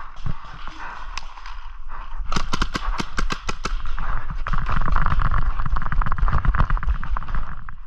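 A paintball marker firing a rapid string of shots, about seven a second for a second and a half, a couple of seconds in. It is followed by the player running through leaf litter, with heavy footfalls and rustling.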